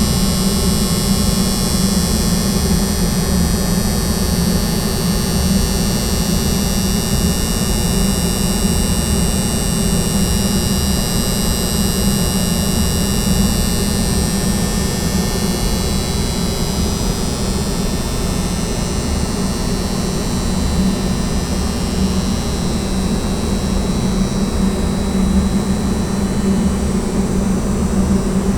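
Air handling unit's soft starter humming loudly and steadily over the rush of the running unit, with some high tones that fade out near the end.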